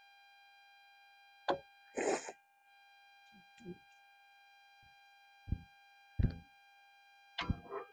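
Scattered knocks and low thumps of objects, such as a seasoning bottle, being handled and set down on a wooden picnic table. There is a short rustling shake about two seconds in, and everything sits over a steady hum of several fixed high tones.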